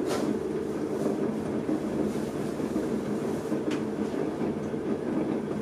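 Electric potter's wheel running while a wooden throwing stick rubs against the inside wall of a spinning clay mug, making a steady, rough rumble, with a couple of faint ticks.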